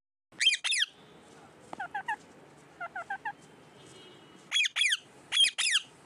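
Rose-ringed (Indian ringneck) parakeet screeching: three pairs of loud, harsh falling screeches, one near the start and two near the end, with runs of softer short chirps in between.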